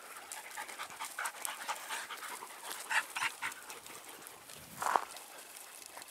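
Hunting dogs panting and sniffing as they work a scent through dry scrub, with small scuffs on stones and one louder short burst about five seconds in.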